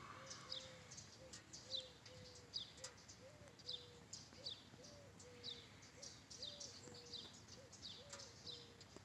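Faint chirping of a small bird: short, high, downward-sweeping chirps repeated about twice a second.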